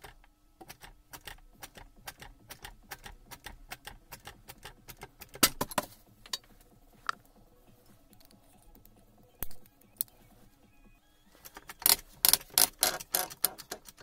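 Ratchet handle clicking at about four clicks a second as the screw of a two-jaw bearing puller is turned to draw a gear and bearing off a shaft, with a loud metallic clatter about halfway through. Near the end there is a faster, louder run of clicks and metal clinks.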